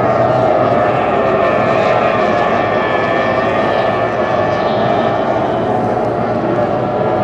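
Formula 1 tunnel-hull racing boats' outboard engines running at racing speed: a loud, steady high-pitched drone whose pitch wavers slightly as several boats pass.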